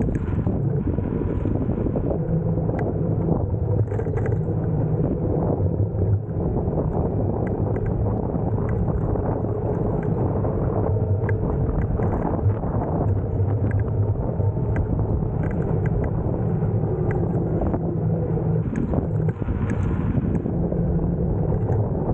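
Nanrobot electric scooter riding along a street: steady wind rush over the microphone and tyre rumble on the asphalt, with a faint low hum that drifts slightly in pitch and scattered small clicks and rattles.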